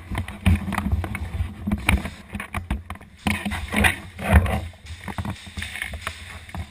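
Handling and movement noise picked up by a camera mounted on an airsoft gun: irregular knocks, bumps and rustles as the gun is carried and moved, with no steady firing rhythm.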